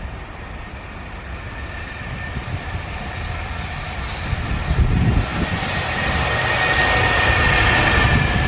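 Freight train hauled by a JR Freight EF210 electric locomotive approaching and passing, the rumble of wheels on rail growing louder over the seconds, with a steady high whine rising in level towards the end.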